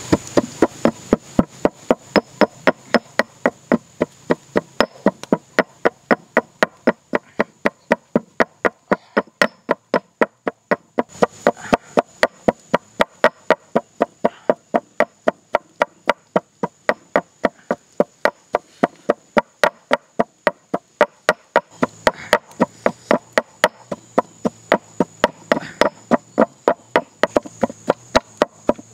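Pestle pounding red chilies and salt in a mortar: steady sharp strikes, about three a second.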